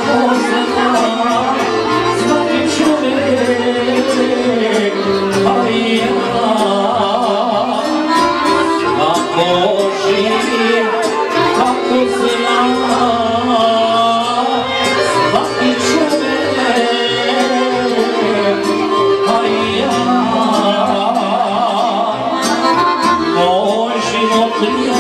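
Live Serbian folk music: a man singing through a microphone, accompanied by violin.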